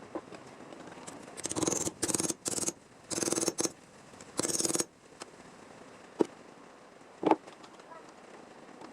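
Metal bodywork on a car's rusted rear fender seam: six short rasping bursts of a tool working sheet steel in quick succession, then two sharp clicks a second apart.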